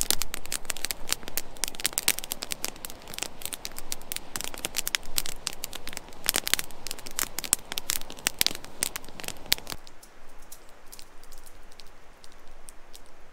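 Campfire of freshly gathered wood crackling and snapping in a dense run of irregular pops. About ten seconds in it drops to fainter, sparser crackles.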